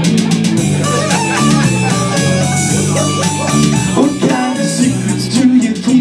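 Live rock band playing an instrumental passage: electric guitar over bass guitar notes that change about every half-second, with a steady drum-machine beat.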